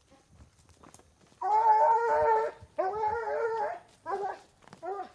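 Hog-hunting dog howling: two long, drawn-out howls of about a second each, followed by a couple of shorter calls near the end.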